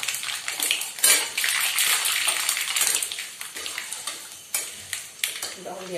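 Mustard seeds and curry leaves sizzling and spluttering in hot oil in a kadhai, a steady hiss full of sharp crackles and pops, with a loud crack about a second in: the tempering (tadka) stage of cooking.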